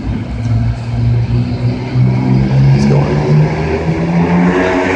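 Car engine running, its pitch stepping up slightly partway through and rising near the end as it speeds up.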